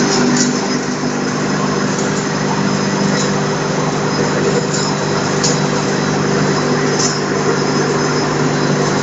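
FIMAK spice-crushing mill with its electric motor running steadily: a constant hum of several low tones under a dense whirr, with a few faint high ticks every second or two.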